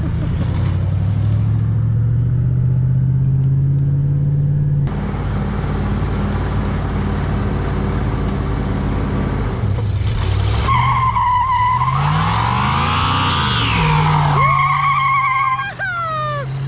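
Car engine running on the road, its pitch climbing steadily over the first few seconds and then holding. From about ten seconds in, a loud high-pitched squeal sounds over it in several stretches, sweeping up and back down in the middle.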